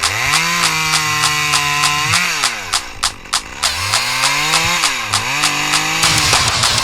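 Two-stroke chainsaw revved up and held at high speed three times, the engine note dropping back between runs, about two seconds, then two and a half, then under a second. A fast, steady ticking beat runs underneath.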